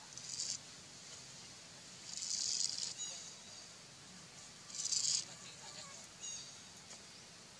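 Jungle ambience with short, high-pitched hissing bursts, the loudest about two and five seconds in, and a few faint high bird chirps between them.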